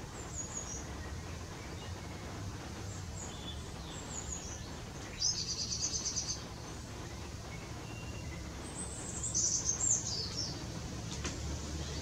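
Small songbirds calling: a few faint high chirps, then a fast run of high repeated notes about five seconds in and a louder falling run of high notes about nine seconds in. A single sharp click comes near the end, over a steady low outdoor rumble.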